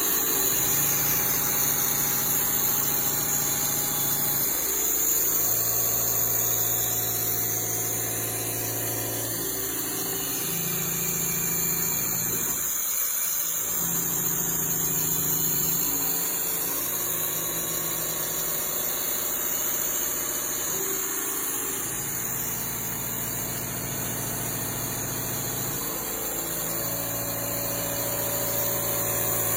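A CNC vertical machining center running, with a steady motor hum over constant hiss. The hum's tones change in steps every few seconds and drop out briefly about halfway through.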